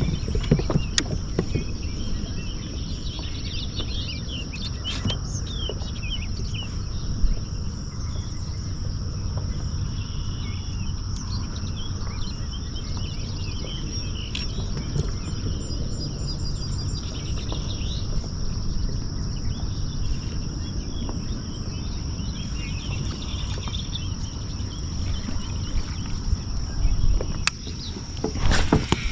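Outdoor ambience: birds chirping and calling, with a steady high-pitched insect drone over a low, even rumble of noise and a few sharp clicks.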